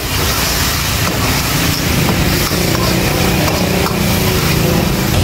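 Metal spatula scraping and knocking against a wok during stir-frying, with irregular sharp clicks, over a loud steady low rumble.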